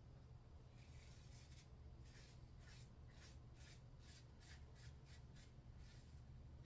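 Faint scraping of a Mühle R41 safety razor cutting stubble: a dozen or so short strokes, about two a second, over a low steady hum.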